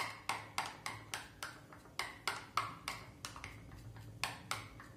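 A spoon clicking against the side of a ceramic bowl while stirring melted chocolate, in a steady rhythm of about three clicks a second.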